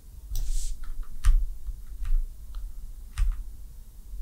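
Computer mouse clicking: about five separate sharp clicks at irregular spacing, the loudest just over a second in, with a brief hiss about half a second in.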